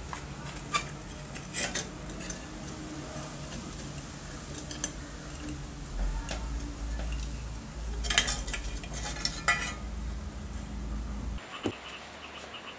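Metal clinks and scraping as the rusty lower blade guard and parts of an old circular saw are handled and worked by hand, with a burst of rapid clinks about eight seconds in.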